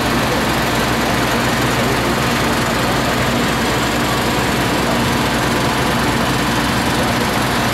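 CLAAS Tucano 430 Montana combine harvester running at a steady speed, a loud, even engine and machinery noise with a faint steady hum underneath.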